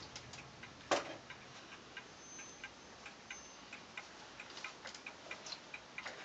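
Steady, evenly spaced ticking, about three ticks a second, with one sharp knock about a second in.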